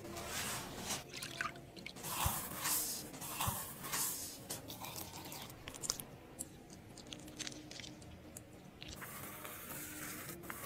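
Wet squishing and light scraping of a pink rose modeling-mask paste, stirred in a bowl with a clear spatula and then spread thickly over gauze on a face. The first few seconds hold louder rustling and crunching as the gauze is pressed on by hand.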